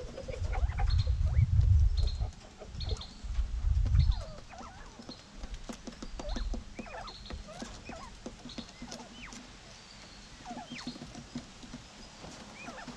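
Quail in a coop close to the microphone, making many short chirps and peeps. In the first four seconds there are loud low rumbling thumps right at the microphone, and a high short note repeats about every half second.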